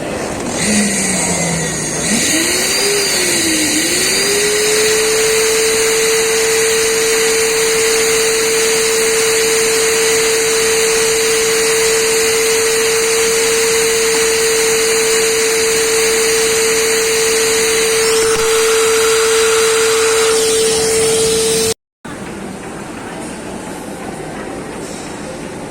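Treadmill motor running with a steady whine over a hiss; the pitch dips and wavers in the first few seconds before settling. Near the end the sound cuts off abruptly and a quieter steady noise follows.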